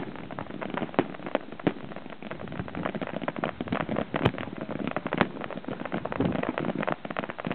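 Aerial fireworks bursting in quick succession: dense crackling and popping, with several sharp, louder bangs standing out.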